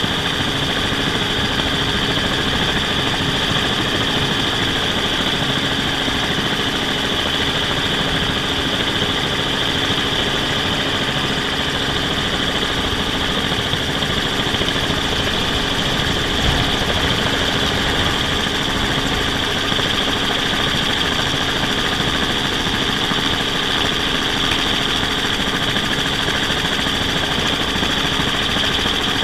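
Multirotor drone's electric motors and propellers running at a steady hover, heard from the camera on board: an unchanging high whine over a lower hum.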